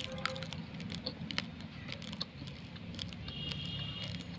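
Raw Daawat rice grains being chewed close to the microphone: an irregular run of sharp, dry crunches and cracks, several a second.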